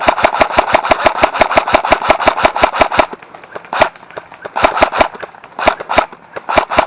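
Airsoft electric rifle firing close by. It fires a full-auto burst of about ten shots a second for around three seconds, then, after a short pause, a few single shots and quick bursts of two or three.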